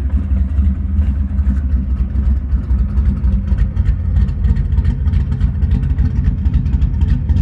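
1995 Pontiac Trans Am's 355 cubic-inch small-block V8, an all-forged build, running at a steady idle, loud and low-pitched through its exhaust.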